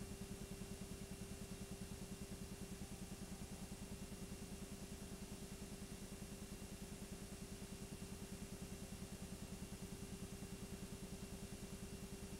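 Steady machine hum with a fast, even flutter, unchanged through the cuts: a film projector running as the silent home movie is played.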